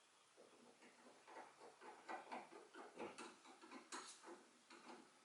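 Manual window crank and door window regulator being worked, giving faint, irregular light ticks and clicks.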